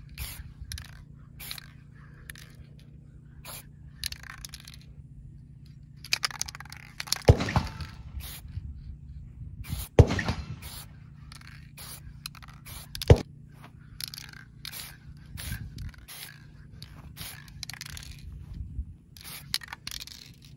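Aerosol spray paint can sprayed in a series of short hisses, spotting accent paint through mesh netting, with a few longer sprays in the middle. Three sharp knocks stand out, at about 7, 10 and 13 seconds in.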